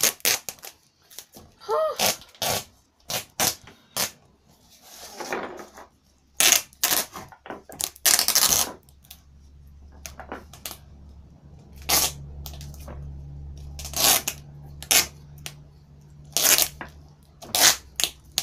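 Duct tape being ripped off the roll in repeated short strips and pressed onto a football, the loudest rips coming in a cluster about a third of the way in. A low steady hum comes in about halfway.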